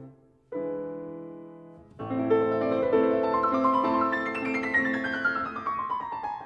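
Solo piano music. A chord is struck about half a second in and fades, then from two seconds a flurry of notes sweeps in a fast run downward from high to low.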